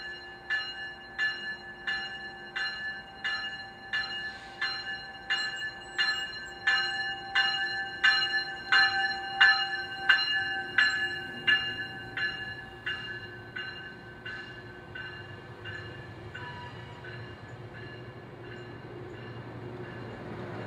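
Locomotive bell ringing steadily, a little under two strikes a second. It swells, then fades away over the second half as a low engine rumble builds underneath.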